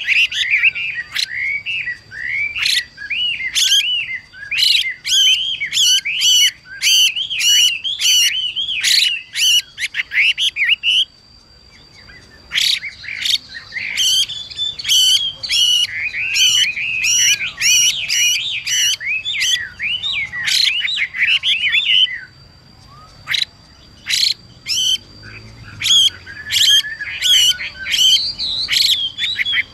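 Chinese hwamei (Garrulax canorus) calling in rapid runs of harsh, scratchy notes mixed with quick whistled phrases. It goes in three bouts, with short pauses about a third and two-thirds of the way through.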